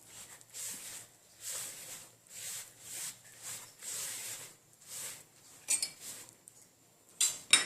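Fingertips gathering crumbly shortcrust (sablé) dough in a bowl: soft rubbing swishes at about two a second. A few sharper clinks come near the end.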